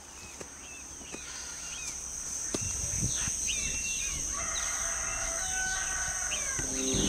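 Outdoor ambience of birds chirping over a steady high-pitched insect buzz, growing steadily louder, with a few soft knocks. From about four and a half seconds a longer held call joins in, and music comes in right at the end.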